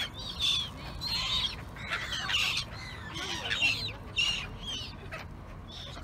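A flock of black-headed gulls calling, with harsh, high squawks coming several times a second and often overlapping.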